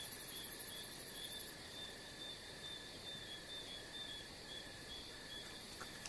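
Faint night-time insect chorus: crickets chirping in a steady, even pulse, with a rapid high-pitched trill that stops about a second and a half in.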